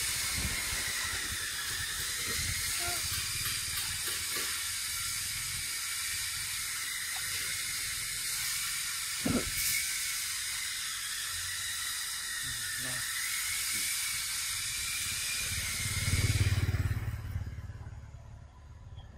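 Steady, high insect drone with a slowly wavering pitch, like a cicada chorus in the forest, with one sharp click about nine seconds in. Near the end a brief low rumble comes up and the drone drops away.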